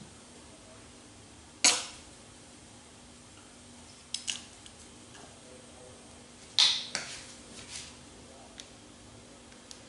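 A few sharp knocks and clinks of a ketchup squeeze bottle and a small glass dish as ketchup is squeezed into the dish. The loudest knock comes just under two seconds in and another near seven seconds, with lighter ticks between and after.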